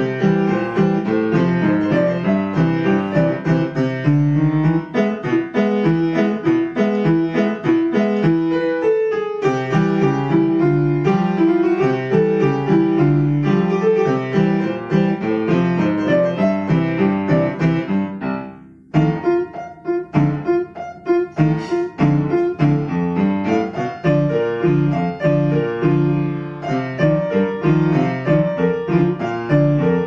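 Upright piano playing a lively ragtime piece, with many quick notes over a steady bass, breaking off briefly about two-thirds of the way through before carrying on.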